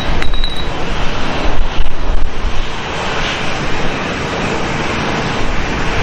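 Airbus A319 jet airliner landing, its engines giving a loud steady rushing roar with a faint steady whine through it as it flares over the runway. Wind buffets the microphone in gusts, loudest near the start and about two seconds in.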